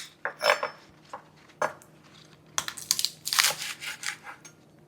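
Knife cutting through fresh green onions with crisp, crunchy cuts: a few separate cuts at first, then a quicker run of cuts in the second half.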